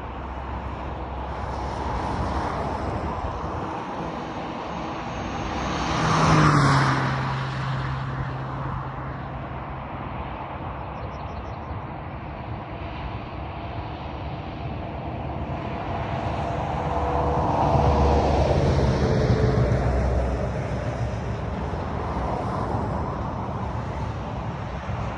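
Road traffic passing on a highway shoulder. One vehicle goes by close about six seconds in, loud and brief, its pitch dropping as it passes. Another passes more slowly around seventeen to twenty seconds, its tone also sliding down, over steady road noise.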